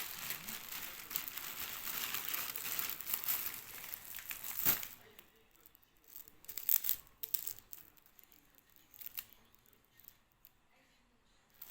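Gift packaging being unwrapped: crinkling and tearing for about five seconds, then a sharp snap, followed by scattered quieter rustles and clicks.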